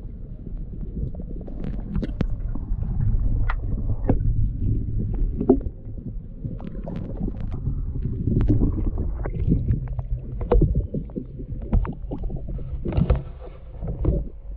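Muffled water noise heard through an underwater camera's housing: a low rumble and sloshing, with many scattered clicks and knocks, and a faint steady hum underneath. The camera is at the water's surface around ten seconds in.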